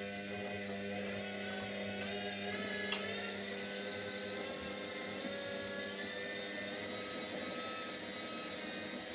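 Washing machine in its 1200 rpm spin cycle: a steady motor whine and drum hum, with the whine's pitch drifting slightly and a single small click about three seconds in.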